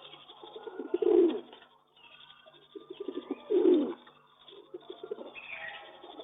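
Pigeon cooing: low, rolling pulsed coos, loudest about a second in and again past the middle, with softer coos in between.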